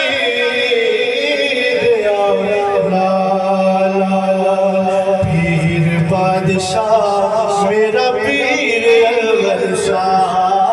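Male voices singing a devotional Sufi chant in long, held, gliding notes.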